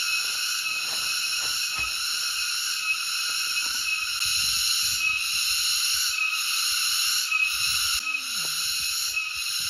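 A steady, high-pitched chorus of calling animals, pulsing faintly about once a second.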